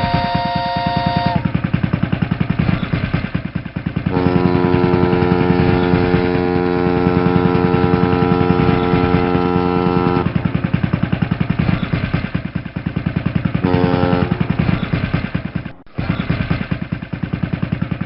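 Boat engine chugging with a fast, even beat, while the boat's horn sounds in steady blasts: one ending about a second in, a long blast of about six seconds starting about four seconds in, a short blast a few seconds later, and another just before the end.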